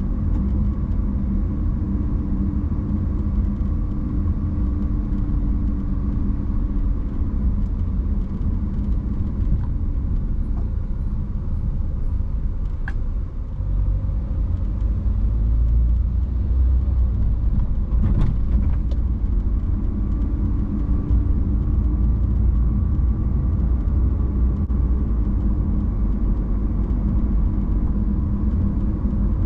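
Car being driven: a steady low rumble of engine and tyres on the road, with a couple of brief clicks partway through.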